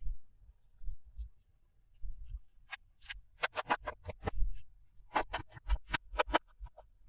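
Hands handling toy packaging at close range: soft bumps and rubbing, then two quick runs of sharp clicks and crinkles, one about three seconds in and another about five seconds in.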